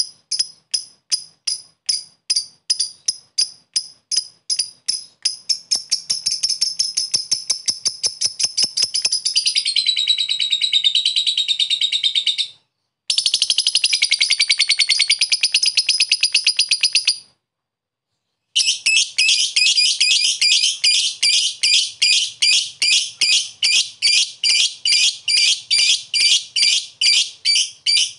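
Lovebird singing its long 'ngekek' chatter: sharp, high chirps repeated about four a second at first, then quickening into long continuous trills. The trills break off briefly twice and then run on.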